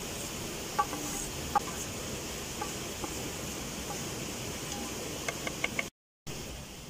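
Wooden tongs scraping and tapping a steel frying pan to knock out cooked shredded cabbage: a handful of short knocks, with a quick run of taps near the end, over the steady rush of a flowing river. The sound drops out for a moment just before the end.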